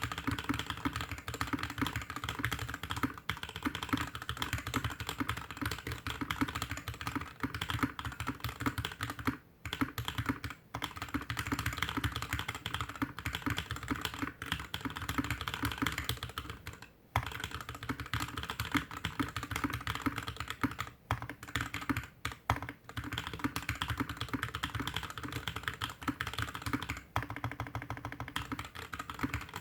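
Fast typing on a GK61X mechanical keyboard with Tecsee Blue Velvet linear switches, a stainless steel plate, plastic case and DSA keycaps, set on a desk mat: a dense, continuous clatter of keystrokes broken by a few brief pauses.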